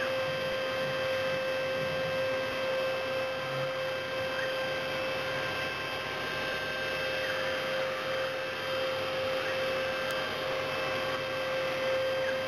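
CNC milling machine running steadily, its spindle giving a constant high whine over a noisy background.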